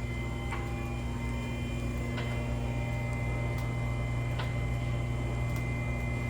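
Steady electrical hum with about five sharp, scattered clicks, from hand work on the Jeep's front bumper.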